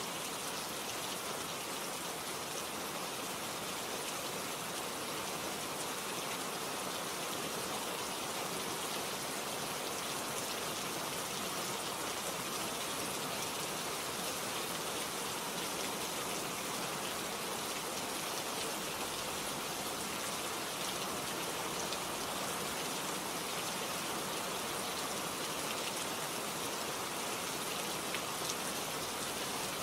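Steady rain falling, a continuous even hiss with faint individual drops pattering on a surface.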